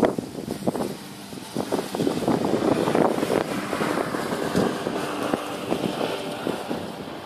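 Wind buffeting the microphone along with rough, rattling road noise from riding a bicycle, swelling for a couple of seconds in the middle.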